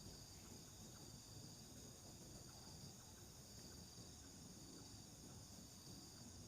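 Faint, steady chirring of night insects such as crickets, in several unbroken high-pitched bands, over a low rumble.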